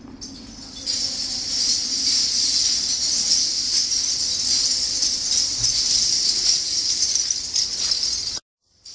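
Dozens of metal bottle caps strung on cords jangling and clinking against one another in a steady, dense rattle. It swells about a second in and cuts off suddenly near the end.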